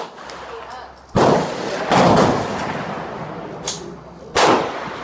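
Gunshots at a shooting range: three loud shots about a second in, near two seconds and after four seconds, each echoing briefly, with a fainter shot between the last two.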